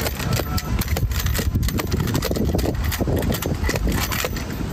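Long-handled hand seam roller pressing peel-and-stick base flashing membrane into a chimney corner, with irregular light clicks, over a steady low rumble.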